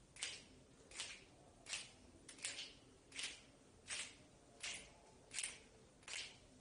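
Quiet, regular swishing strokes, one about every 0.7 seconds, a few of them doubled.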